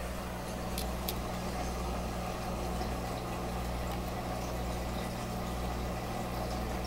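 Steady low hum of an aquarium pump running continuously, with two faint clicks about a second in.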